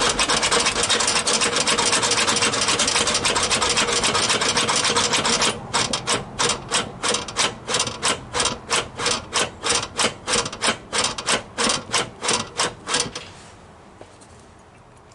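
Aerosol can of penetrating lubricant spraying: one long continuous hiss for about five seconds, then a run of short quick spurts, nearly three a second, that stops near the end. It is being used to soak a sticky throttle cable and linkage.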